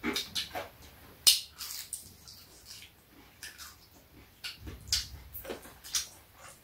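Fried chicken being eaten by hand: irregular crunches, lip smacks and soft clicks of chewing and pulling meat from the bone, the sharpest crunch about a second in.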